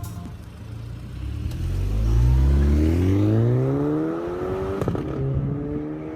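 VW Jetta 1.4 TSI turbocharged four-cylinder engine accelerating with steadily rising revs, then a single sharp pop about five seconds in: the DSG upshift 'fart' from its exhaust. After the pop the engine runs on at steadier revs.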